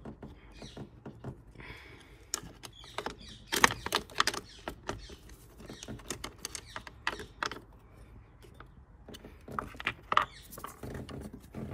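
Screwdriver prying and scraping at a car's negative battery terminal clamp to lever it off the post, making irregular metallic clicks and scrapes. The sharpest click comes about three and a half seconds in.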